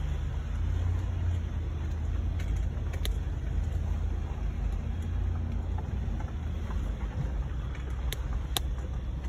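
Inside the cab of a Toyota Sequoia driving on a dirt fire road: the V8 engine and tyres make a steady low rumble. A few sharp clicks come through, one about three seconds in and two near the end.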